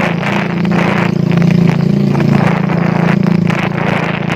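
Motorcycle engine running at a steady low speed while riding, with wind rushing over the microphone.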